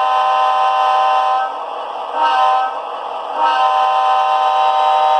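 Sampled diesel locomotive air horn, a Wabco horn, played by a model locomotive's Tsunami sound decoder. It sounds a long blast, then a short one about two seconds in, then another long one from about three and a half seconds in.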